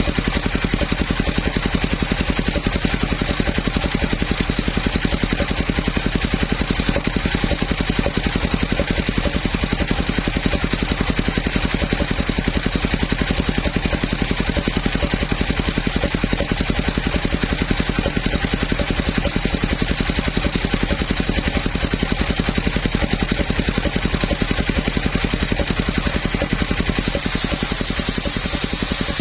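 Engine driving a homemade circular sawmill, running steadily with a fast, even firing beat, easing slightly just before the end.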